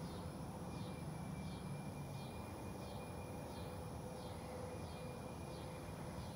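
Outdoor evening ambience: a steady low rumble with a faint chirping call repeating about every second and a thin steady high tone.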